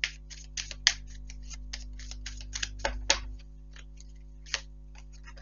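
A deck of tarot cards being shuffled by hand: a run of quick, irregular clicks and card flicks, thick for the first three seconds or so, then only a few scattered ones.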